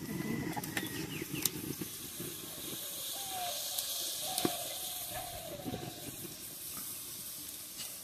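Fish pieces and masala frying in hot oil in an aluminium kadai: a steady sizzle with a few sharp crackles.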